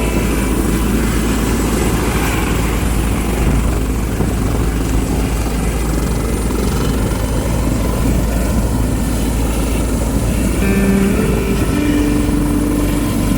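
Helicopter's rotor and turbine engine running with a loud, steady noise, with a few brief pitched tones about eleven seconds in.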